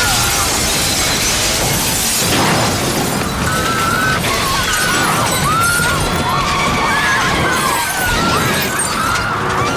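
Film soundtrack of a Suburban crashing out through a bank's plate-glass front: glass shattering and debris crashing, loud throughout, mixed with a music score whose wavering tones come in a few seconds in.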